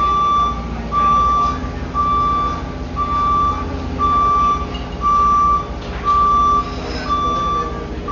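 A vehicle's reversing alarm beeping, a single steady tone about once a second, over the low rumble of its engine.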